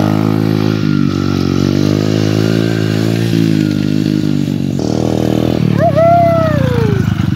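Small orange pit bike's engine running under the rider, its pitch rising and falling as the throttle is opened and eased off, with a higher rev about five seconds in.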